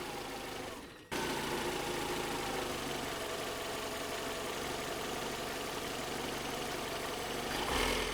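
Car engine idling steadily, breaking off briefly about a second in and then running on evenly.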